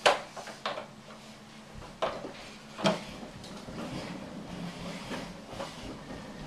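Hard plastic knocks and clatters from a baby's push-along walker toy being handled and moved on a wooden floor: a sharp clack at the start, then a few more over the next three seconds.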